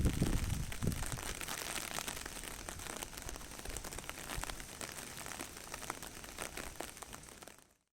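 Cyclone wind and heavy rain: a dense hiss full of crackling spatters, with low gusts buffeting the microphone in the first second or so. It fades out just before the end.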